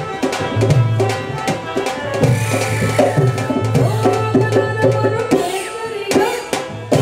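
Rajasthani folk music: a hand drum beats a quick, repeating rhythm of deep strokes and sharp slaps over sustained steady tones.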